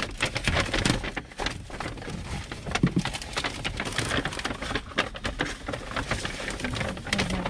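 Large brown paper takeout bag rustling and crinkling steadily as it is handled and food containers are pulled out of it.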